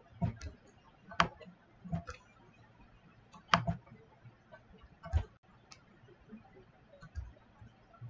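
Computer mouse clicking: sharp single clicks every second or so, a couple of them in quick pairs, as a Fibonacci retracement is drawn on a trading chart.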